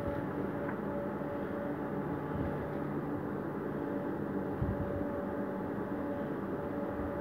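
Steady mechanical hum holding several pitches, with a faint thud about four and a half seconds in.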